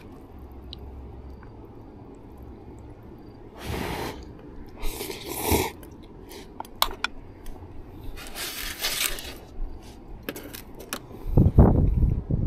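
Eating basil pasta out of an aluminium mess tin: scattered light clicks and scrapes of a utensil against the tin, with a few short rushing noises. A low thump comes near the end.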